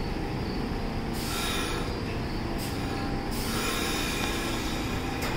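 R46 subway train standing at the platform before departure, its equipment giving a steady low rumble. A hiss comes in about a second in and lasts about two seconds, with a brief one near the end.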